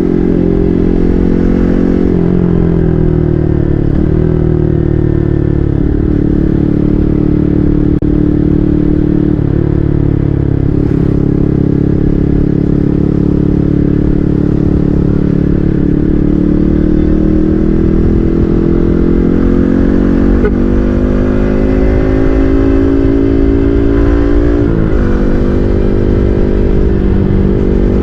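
Yamaha MT-15's single-cylinder engine through an SC Project full-system aftermarket exhaust, heard from the rider's seat while riding. The note falls as the bike slows a few seconds in, holds steady for a while, then climbs through a long pull in the second half and drops suddenly near the end, as at a gear change.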